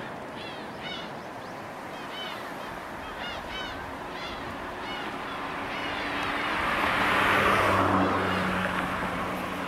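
Tsunami water surging into a harbour: a rushing that builds to its loudest about seven to eight seconds in. Over the first half a bird gives short, repeated calls, and a low steady hum comes in about five seconds in.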